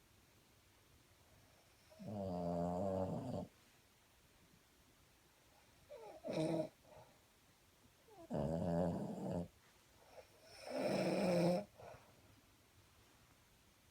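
Snoring traded back and forth between a person and a Boston Terrier: four separate snores, each a second or so long, with the last one the loudest.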